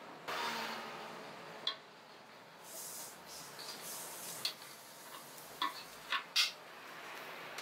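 Soy milk splashing and sloshing in a large aluminium bowl as it is ladled and stirred by hand, with a few light knocks on the metal in the second half.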